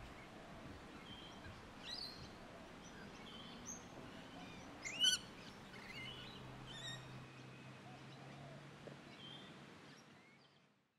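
Suburban park ambience with Australian birds calling: scattered chirps and whistles over a soft background hiss, with one louder rising call about five seconds in. It fades out near the end.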